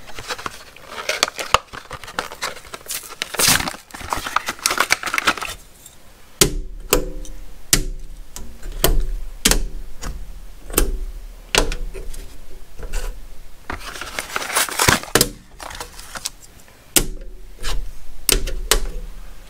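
Hard plastic blister packaging crackling and tearing as it is opened, with many sharp clicks and clatters as the small metal magnetic bulldog clips are handled and set down on the metal toolbox top.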